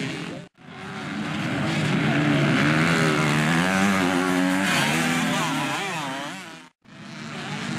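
Motocross dirt bike engines revving through a turn, the pitch rising and falling as the riders work the throttle. The sound drops out briefly twice, about half a second in and near the end.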